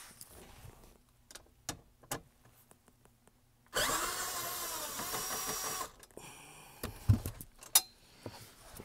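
Cordless quarter-inch drive gun with a socket on it running for about two seconds, starting a few seconds in, on the knee bolster fasteners. Before and after it there are light clicks and knocks of the tool being handled, and a thump near the end.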